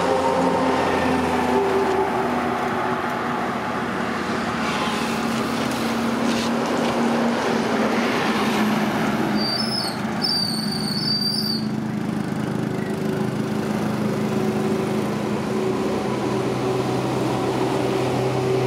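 Motorcycle engine running steadily amid passing road traffic on a highway. A brief high chirping comes about ten seconds in.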